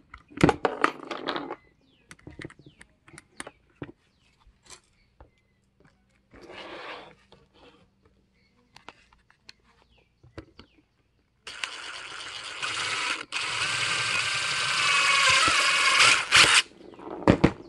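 Cordless DeWalt brushless drill running for about five seconds with a wavering motor whine, drilling a hole through a plastic rail cap with a 5/32 bit, with a split-second stop partway through. Before it, scattered clicks and knocks of tools and parts being handled.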